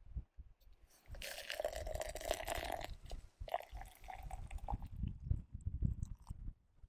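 Water from a Jetboil cooking cup poured onto instant coffee granules in a stainless steel insulated tumbler, starting about a second in. A steady splashing pour whose pitch rises slightly as the tumbler fills.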